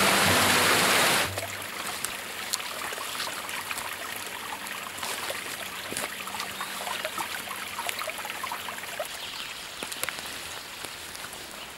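Background music over the rush of a cascading mountain creek, both cutting off about a second in. After that comes a quieter stretch of faint, irregular small crackles and ticks.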